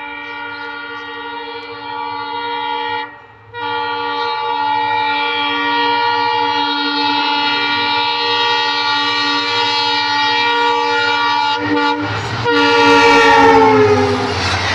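Indian Railways diesel locomotive's air horn blowing long as the express approaches at speed, with a short break about three seconds in; the horn's pitch drops as the locomotive passes close by near the end, and the loud rush and rumble of the passing train takes over.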